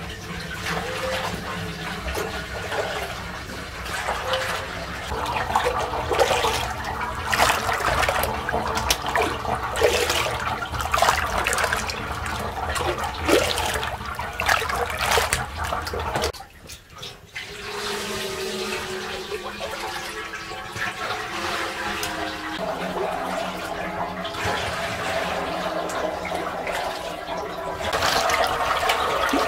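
Watery sprouted-wheat (malt) mash being squeezed by hand and ladled with a mug through a cloth strainer, the liquid splashing and pouring into the pot below. It breaks off briefly about halfway, then carries on.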